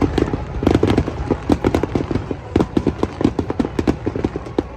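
Fireworks going off: a rapid, irregular string of sharp pops and crackles, several a second, over a low rumble.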